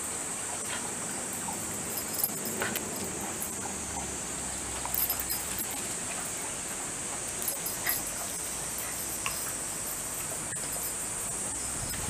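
A steady high drone of insects, with scattered light clicks and taps of a shiba inu's claws and paws on concrete as it walks about.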